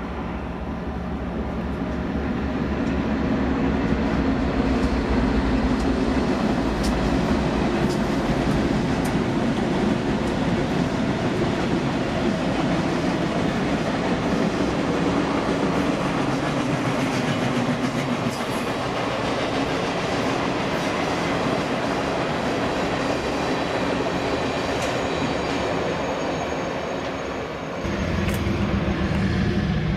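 Train passing on the track: a steady rumble of rolling wheels with scattered clicks, building over the first few seconds. Near the end it dips briefly and a heavier, lower rumble takes over.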